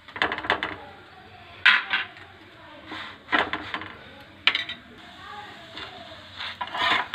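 A metal spatula scrapes and knocks against a tawa griddle as a maize-flour paratha is pressed and turned. The short clicks and scrapes come in about five clusters.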